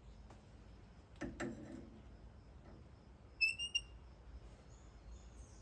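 Faint knocks and clicks of an outside micrometer being handled and set against a steel test bar, the loudest pair about a second in. Two short high-pitched squeaks come about halfway through.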